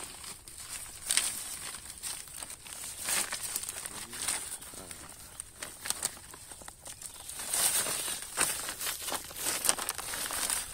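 White woven plastic sack rustling and crinkling as it is gripped, opened and handled, in irregular crackles with louder ones now and then.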